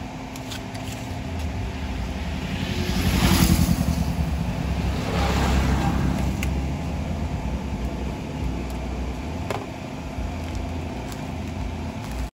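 Road traffic passing: two vehicles go by, one swelling about three seconds in and another around five to six seconds, over a steady low hum. A few light clicks.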